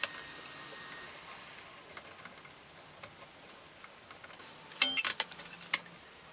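Hand screwdriver and small screws clicking and ticking against a mitre saw's plastic motor housing and metal blade-guard plate, with a quick run of sharper metal clinks about five seconds in.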